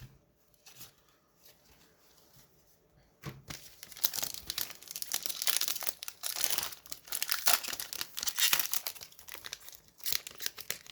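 Wrapper of a football trading-card pack being torn open and crinkled. It starts about three to four seconds in and goes on for about six seconds.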